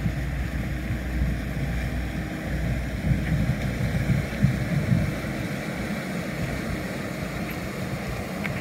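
Pilot boat's engines running with a low rumble as it motors close past and churns up its wake; the deep steady hum fades about halfway through as it moves on. Wind buffets the microphone throughout.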